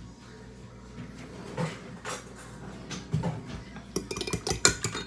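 Metal utensil clinking against a bowl as eggs are beaten: a few scattered knocks, then a quick run of clinks near the end.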